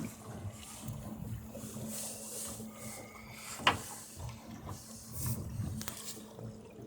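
Small sailboat under way: faint water noise around the hull with creaks and rattles of the boat's gear, and a sharp knock about three and a half seconds in.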